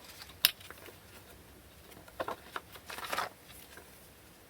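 Handling of cards and packaging: a sharp click about half a second in, then a few brief rustles.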